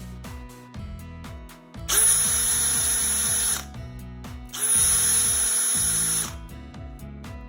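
Makita DF474D cordless driver drill running in two bursts of about a second and a half each, a steady motor whine that rises quickly to speed at the start of each run.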